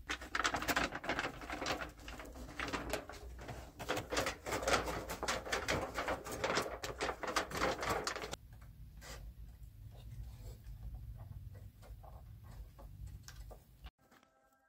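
Aluminium foil crinkling as it is handled, a dense crackle for about eight seconds, then softer, scattered crackles as it is pressed and folded by hand.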